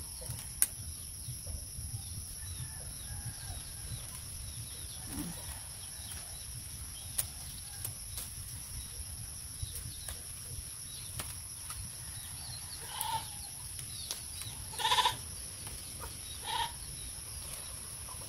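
Thin bamboo strips clicking and rustling as a basket is woven by hand, over a steady high-pitched drone. Near the end an animal calls three short times, the middle call the loudest.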